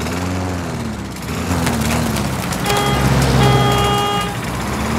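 Mini truck engine running along the road, its pitch rising and falling a little. Near the middle, the horn honks twice: a short toot, then a longer blast.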